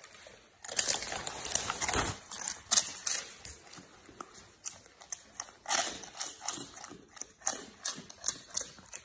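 Golden retriever chewing a dried cod skin treat: crisp, irregular crunches and cracks in uneven runs, densest in the first few seconds.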